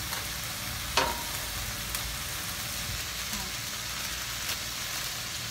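Vegetables frying in a wok, a steady sizzle, with one sharp click about a second in and a few fainter ticks after.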